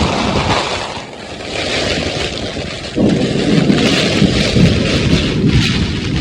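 Heavy rain and strong wind in a thunderstorm, with a low rumble of thunder that fades about a second in and another that starts suddenly about three seconds in.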